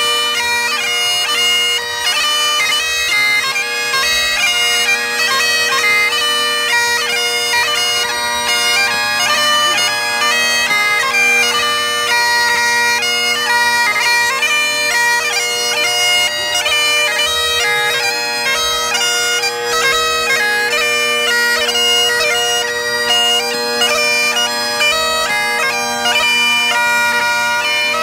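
Great Highland bagpipe played solo, with steady drones sounding under a fast, heavily ornamented chanter melody: a competition march, strathspey and reel set.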